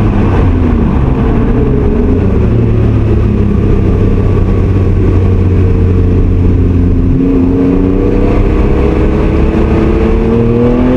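A kei car's 660 cc engine and its aftermarket rear-piece muffler, heard from inside the cabin while driving. The engine note holds steady, then rises in pitch from about seven seconds in as the car accelerates.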